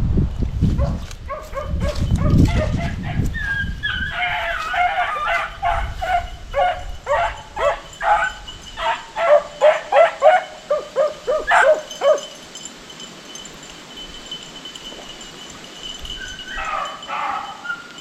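Beagles giving voice on a rabbit's track: a run of repeated baying yelps starts about four seconds in, quickens and grows loudest, then stops after about twelve seconds. A short run of the same cries comes again near the end.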